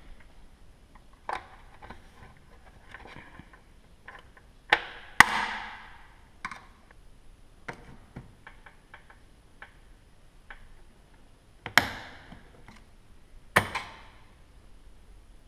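A screwdriver prying the retaining rings off a car's intake hoses, giving scattered sharp clicks and snaps. The loudest come about five seconds in and again near twelve and fourteen seconds, with light ticks between.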